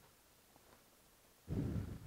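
Quiet work-bench background, then a single low, muffled thump about one and a half seconds in.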